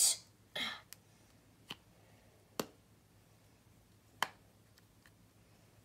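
A short rustle, then three sharp, separate clicks about a second apart: small hard plastic pieces knocking together as they are handled.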